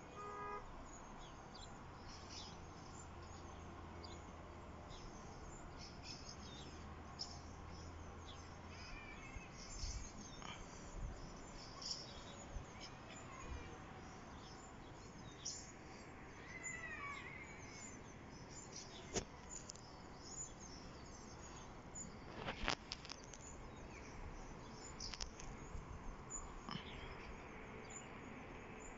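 Faint open-air background noise with scattered bird chirps and short calls, a few of them sliding in pitch. A sharp knock about two-thirds of the way in is the loudest moment.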